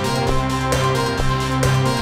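Background music with a steady beat and plucked, guitar-like notes.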